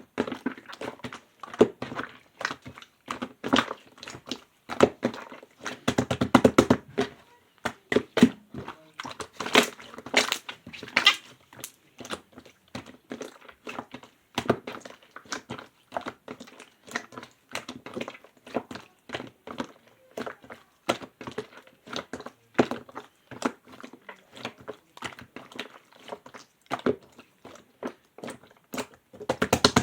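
Clear slime being squeezed, folded and poked by hand, giving a rapid, irregular string of sticky pops and clicks, busiest about six seconds in and again around ten seconds.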